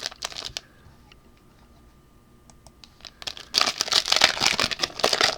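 A foil trading-card pack being handled and torn open: a few crinkles at the start, then a dense run of crinkling and tearing from about three and a half seconds in.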